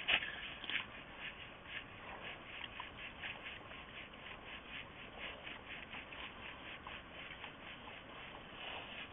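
Wild boars feeding on the ground, a steady run of short crunching sounds about three a second as they chew and root.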